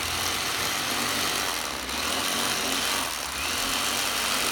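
Electric fillet knife running steadily as its blades saw along a bullhead's backbone to cut a fillet.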